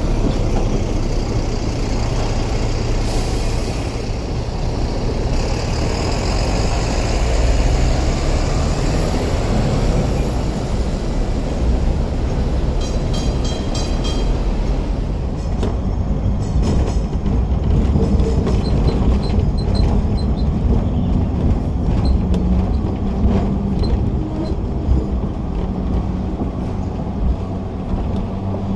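Hong Kong Tramways double-decker electric trams running on street track among road traffic, a steady low rumble throughout, with a brief run of rapid, evenly spaced clicks about halfway through.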